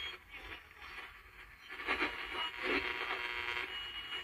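Radio receiver of a 1970s AM/FM record player being tuned between stations: uneven static and hiss with snatches of broadcast sound, and a short high whistle near the end.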